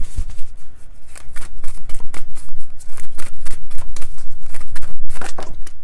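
A deck of oracle cards being shuffled by hand: a quick, irregular run of card flicks and slaps, several a second.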